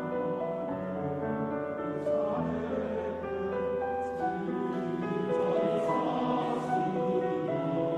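Male-voice choir singing sustained chords in harmony, with piano accompaniment.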